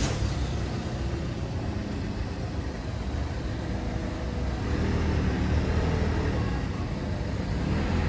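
Steady low rumbling noise, strongest in the bass and a little louder about five seconds in, with no distinct events.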